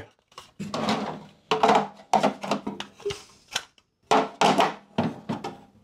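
Plastic money tray of a Royal 140DX cash register knocking and clattering as it is handled and set into the cash drawer: a string of irregular knocks and clicks, several of them close together.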